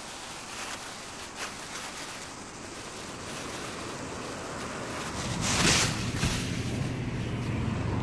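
Wind rushing over the microphone with a steady hiss of road traffic, and a short loud burst of noise a little past halfway. After about five seconds a motor vehicle's low, steady engine hum comes in and grows louder.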